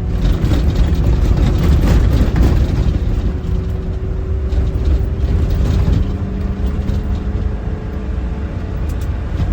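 Land Rover driving on a rough dirt trail: steady engine and road rumble, with a faint whine slowly rising in pitch and scattered knocks and rattles over the uneven ground.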